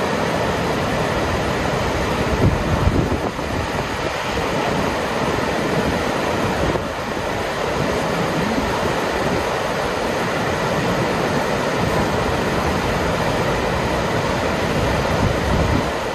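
Kurobe Gorge Railway trolley train running, a steady rail-and-wheel rush with a few heavier low surges.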